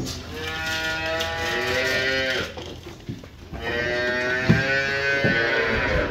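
Hungry dairy calves bawling at bottle-feeding time: two long calls of about two seconds each, the second starting a little past halfway, with a couple of short knocks under them.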